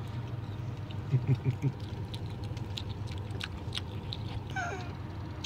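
Chewing cheese curds: small mouth clicks, with a few short hummed "mm" sounds about a second in and a brief one near the end, over a steady low hum in the car.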